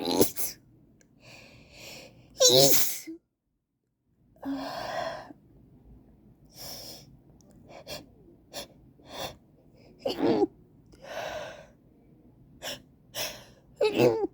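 A woman's allergy sneezing fit: several loud sneezes with gasping in-breaths and short sniffs between them, and a second of dead silence about three seconds in.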